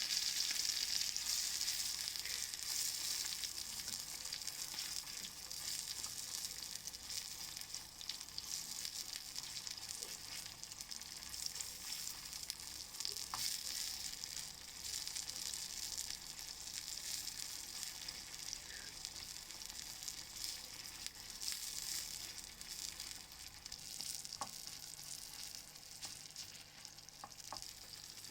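Cumin seeds and chopped tomatoes sizzling as they fry for a tadka in a miniature pan. The sizzle is loudest at first and fades gradually, with a few light clicks from stirring.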